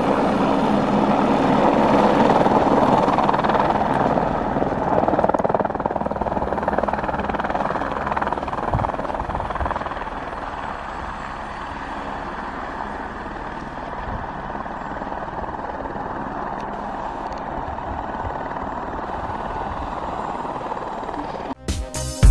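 A helicopter running, loudest in the first few seconds and growing fainter after about ten seconds. Music cuts in suddenly near the end.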